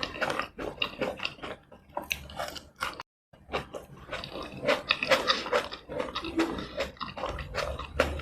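Close-miked chewing and wet mouth smacking as tomato rice and chicken in red chili sauce are eaten: a quick run of sticky clicks and smacks. The sound drops out completely for a moment about three seconds in.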